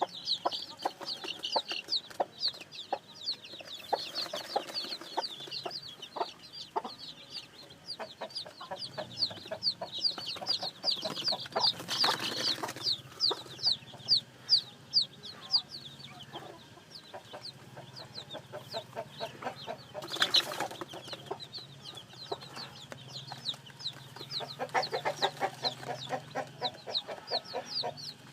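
Newly hatched chicks peeping continuously, a dense stream of short, high, falling calls, over the lower, rapid clucking of chickens that grows stronger near the end. Two brief louder, noisy bursts come about halfway through and again about two-thirds of the way in.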